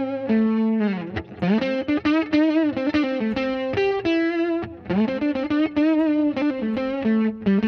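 Recorded electric guitar playing a single-note melodic line with bends and slides. It runs through overdrive, chorus and delay pedals in Logic Pro X's Pedalboard plugin: a Retro Chorus pedal and a Blue Echo delay pedal.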